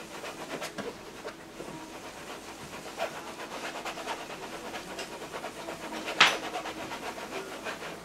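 Paintbrush scrubbing oil paint onto a stretched canvas in many short strokes, with one sharper knock about six seconds in.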